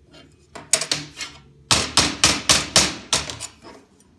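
Hammer striking steel parts to knock them square: a few light taps, then a quick run of about six heavier blows at about four a second that taper off near the end.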